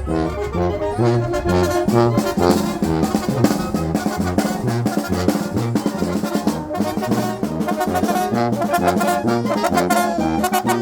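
Traditional Mixtec wind band (banda mixteca) playing a lively tune: brass and saxophones carry the melody over a bass line stepping about twice a second.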